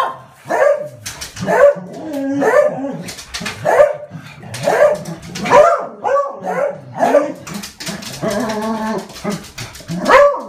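Beagles barking over and over in a fast run of alarm barks, with a longer drawn-out bay a little past the middle. The barking is a warning at birds or cats coming into the garden.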